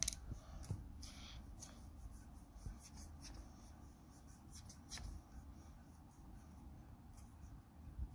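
Faint scratching of a drawing tool on paper: short strokes at irregular intervals, with a sharper click at the start.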